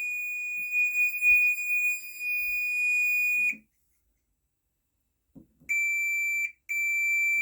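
Fire alarm sounder on a Gent Vigilon system giving one continuous high-pitched tone. It cuts out for about two seconds midway, then comes back with a brief break. The alarm has re-triggered after a reset because the manual call point was never reset.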